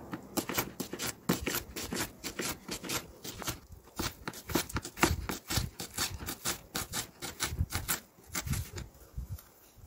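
Kitchen knife chopping a red onion on a cutting board: a quick, steady run of short knife strikes, several a second, as the onion is diced into small pieces.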